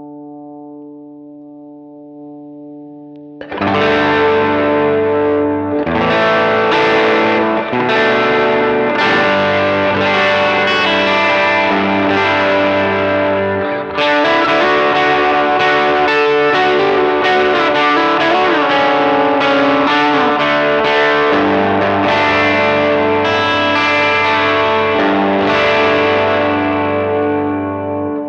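Electric guitar played through a Very Good Amp Co EP Drive overdrive pedal. A held chord rings and fades, then about three and a half seconds in loud overdriven chords come in, changing every second or two, and they die away near the end.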